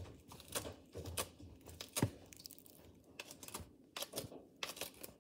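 Toy hairbrush stroked through a doll's synthetic hair: faint, irregular short scratchy strokes and light clicks.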